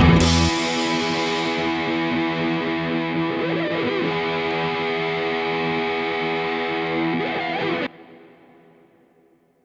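Background rock music: a distorted electric guitar holds a ringing chord once the rest of the band drops out, about half a second in. It cuts off about eight seconds in and the tail dies away to silence.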